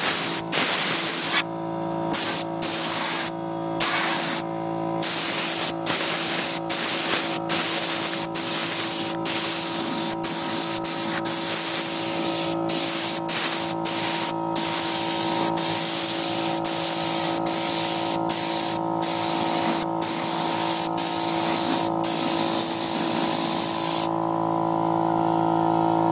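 Air paint spray gun hissing in repeated bursts with short breaks between them, stopping near the end, over a steady hum.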